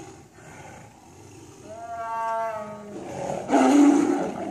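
Tigers fighting: one drawn-out pitched cry about two seconds in, then loud roars from about three and a half seconds.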